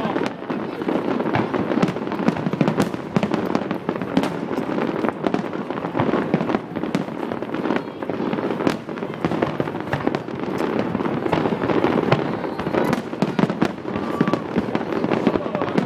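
Fireworks bursting in rapid succession, a continuous barrage of overlapping booms and crackles with no break.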